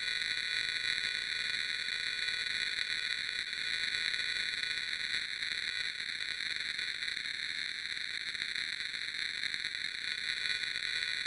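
Steady electronic static: a hiss concentrated in the upper midrange that holds the same level throughout, with a faint low hum beneath it.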